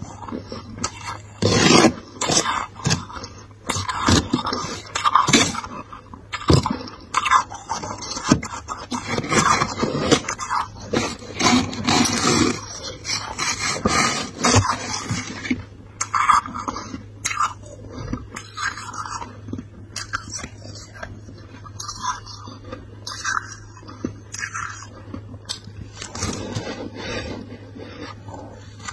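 Soft, thick freezer frost being crunched and scraped in irregular crisp crunches and crackles, busiest in the first half. A steady low hum runs underneath.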